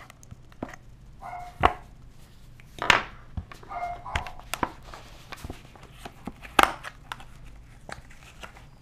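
A small retail box being opened by hand: scattered taps, clicks and knocks of cardboard and plastic packaging, with a couple of short squeaks.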